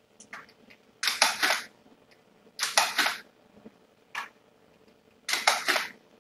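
Mother cat and her nursing kittens rustling and scratching on a fleece bed: three short scratchy bursts, each a few quick strokes, spaced about two seconds apart, with a few soft clicks between.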